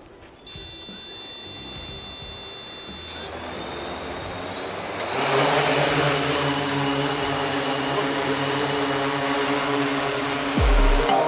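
3DR X8 Plus octocopter's eight electric motors and propellers start spinning at idle about half a second in with a steady high whine. About five seconds in they throttle up to lift it off the ground, settling into a loud, steady buzz as it hovers. A brief low thump comes near the end.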